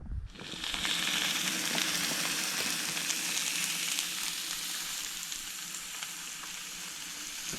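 Steaks sizzling in a hot frying pan: a hiss that starts suddenly as they go in, then steady sizzling with a few small pops.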